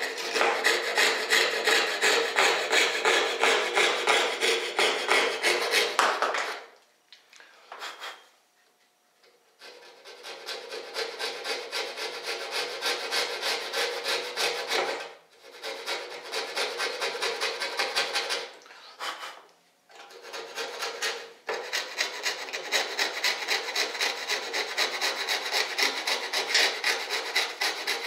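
Coping saw cutting a cope profile into primed MDF baseboard, in quick back-and-forth strokes. The sawing stops for a few seconds about a quarter of the way in, and briefly twice more later, then goes on.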